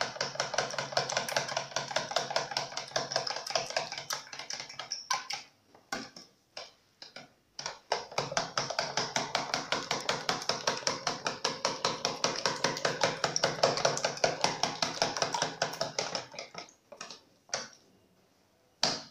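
A fork beating eggs and milk in a plastic container: fast, even clicking and tapping as the fork strikes the container, about four or five strokes a second. The strokes thin out briefly about five seconds in, then resume and trail off near the end.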